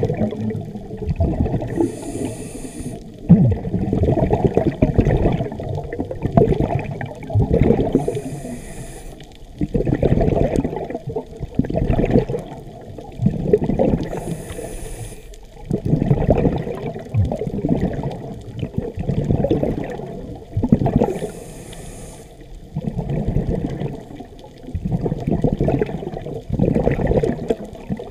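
Scuba regulator breathing underwater: a short hiss of inhalation about every six seconds, each followed by several seconds of bubbling and gurgling as the exhaled air escapes.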